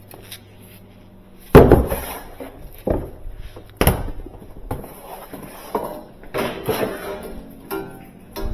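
Refrigerator heat exchanger assemblies, the metal suction-line and capillary-tube parts, being handled on a bench: a few sharp knocks and clatters, the loudest about a second and a half in, then lighter rattling.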